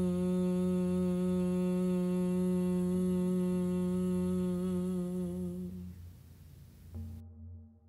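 A woman's voice chanting one long 'ee' on a single steady pitch, the vocal toning that closes a yoga practice; it fades out about six seconds in. A brief, fainter low tone follows near the end.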